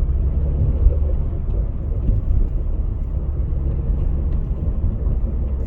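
Citroën C5 1.8 petrol engine running with a steady low rumble and a faint ticking, a noise the owner suspects is abnormal.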